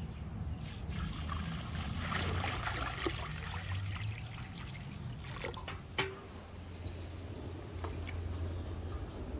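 Water poured from a metal bucket into a large empty iron cauldron, splashing hard on the metal and then tapering off around five seconds in. A single sharp knock follows about a second later.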